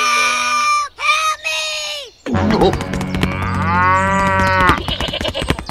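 Cattle mooing: a few short held calls in the first two seconds, then one long call that rises and falls over a busier, clicking background.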